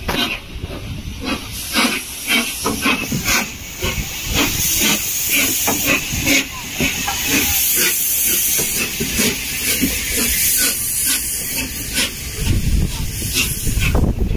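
Gresley A3 Pacific steam locomotive Flying Scotsman passing at low speed, its three-cylinder exhaust beating in a steady rhythm of about two to three chuffs a second. Loud steam hiss from the open cylinder drain cocks, which fill the scene with steam at wheel level, runs under the beats.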